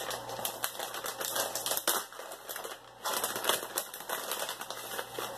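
Hands opening the packaging of an HDMI splitter: a run of irregular crackling, clicking rustles, briefly quieter about two seconds in.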